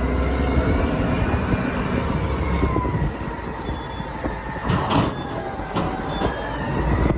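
Caterpillar 992C wheel loader working: a heavy diesel rumble with thin high squealing tones that drift in pitch. There are a few sharp knocks around five seconds in as the raised bucket loads a truck.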